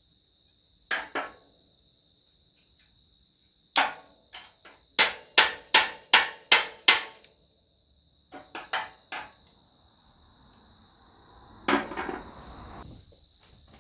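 Hammer blows on a seized steel pin: scattered strikes, then a quick run of about seven blows, roughly three a second, and a last blow near the end with a rattle after it. The pin is seized in place and does not drive out.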